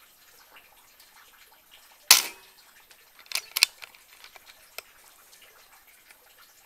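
A PCP air rifle fires once, a single sharp crack about two seconds in. About a second later comes a quick cluster of clicks, and one more click follows near the end.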